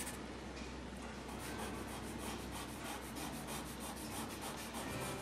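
Pastel pencil scratching across pastel paper in quick, short repeated hair strokes, several a second, starting about a second in.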